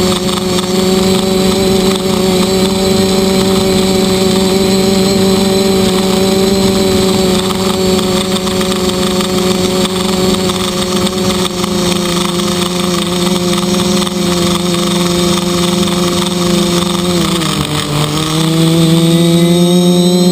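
Quadcopter's electric motors and propellers whirring steadily at close range, heard from the camera mounted on the craft. Near the end the pitch dips briefly, then rises higher as the motors speed up.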